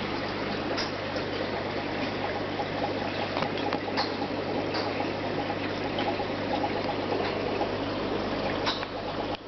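Aquarium filter running: a steady trickle and splash of water over a low steady pump hum, with a few faint clicks.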